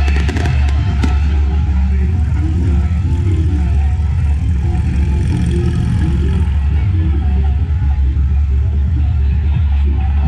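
Car sound system playing music very loud, dominated by a heavy, steady bass. A few sharp clicks come in the first second.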